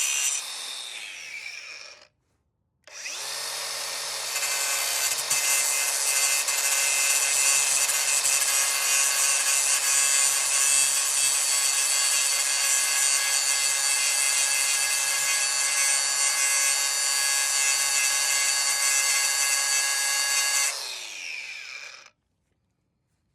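DeWalt 60V cordless angle grinder cutting through an old bolt. It winds down in the first two seconds, starts again about three seconds in and spins up, cuts steadily for about seventeen seconds, then is released and winds down to a stop.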